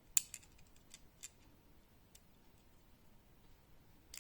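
Light clicks and ticks of Glock 44 slide parts being handled as the slide is stripped. One sharp click comes just after the start, a few fainter ticks follow over the next two seconds, and another click comes near the end.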